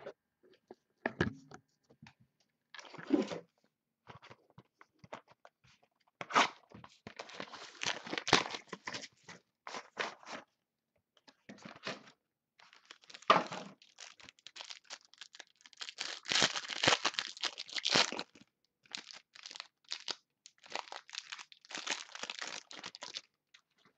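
A sealed trading-card box and its wrapped packs being torn open by hand: irregular crinkling, tearing and crackling of wrapper and cardboard, in several bursts with short clicks between them, busiest toward the last third.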